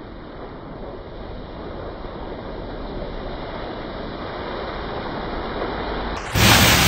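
White Mercedes-AMG GLE SUV driving through puddles on a wet gravel track: a steady rushing of tyres and water spray that slowly gets louder, with no engine note standing out. Near the end a much louder sound with a low steady hum cuts in suddenly.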